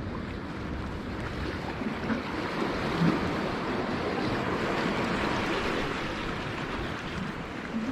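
Sea waves washing among concrete tetrapod breakwater blocks: a steady rushing wash that swells to its loudest midway and then ebbs, with wind buffeting the microphone.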